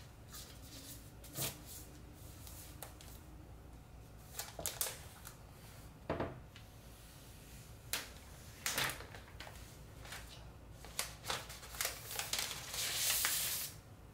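Handling noise from a MacBook Pro laptop being turned over and set down on a wooden desk: a few scattered light knocks and taps, then a longer rubbing swish near the end.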